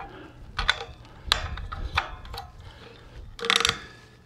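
Ubiquiti GigaBeam radio's ball-joint mount being tightened by hand: scattered clicks and scrapes as the lock ring is turned around the ball, with a louder scraping rub near the end.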